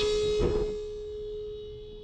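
Electric booster pump of a boat's newly installed water-filter system running with a steady high whine; about half a second in there is a short knock, and the whine drops to a much fainter steady hum.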